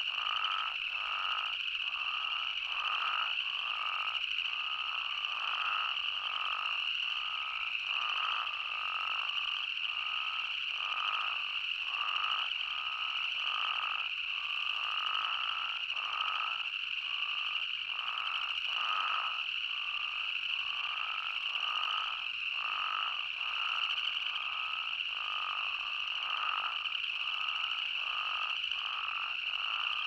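Chorus of spadefoot toads calling: many short bleating calls repeat and overlap, one or two a second, over a steady high-pitched drone.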